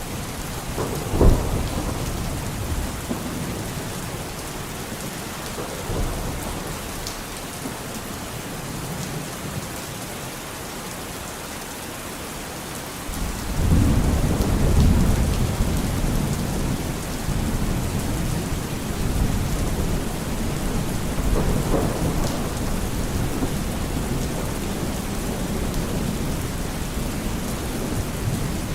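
Steady rain falling, with thunder: a sharp crack about a second in, then a long rolling rumble of thunder that swells up about halfway through and keeps rolling under the rain.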